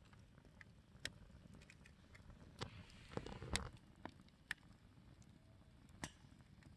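Wood campfire crackling faintly, with scattered sharp pops about once a second and a short burst of louder noise a little past halfway.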